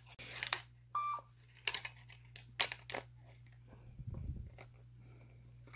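Scattered light clicks and taps of small plastic filament parts being handled, with one short electronic beep from the 3D printing pen about a second in, which the reviewer guesses meant the pen going on standby. A low steady hum runs underneath.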